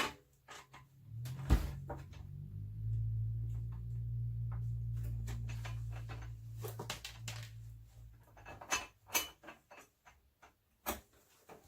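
Scattered clicks and knocks of computer hardware being handled, with a low steady hum lasting several seconds in the middle.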